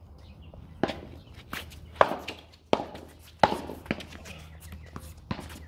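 Pickleball rally: paddles striking a hard plastic ball in a run of sharp pops about every half to three-quarters of a second, with a short gap near the end.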